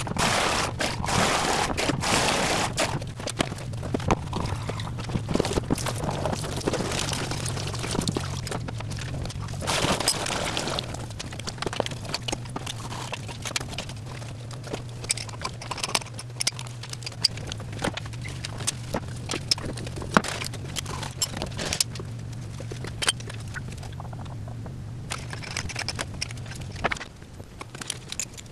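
Metal clinks, clicks and knocks from hands and tools working a commercial flushometer toilet valve, over a steady low hum. Two stretches of rushing noise, one at the start and one about ten seconds in.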